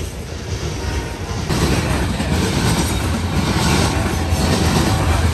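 Freight train passing close by: a steady rumble of locomotives and rolling cars that grows louder about a second and a half in.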